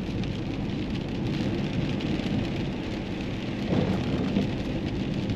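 Steady road and tyre noise with engine hum inside the cabin of a moving car, briefly louder a little under four seconds in.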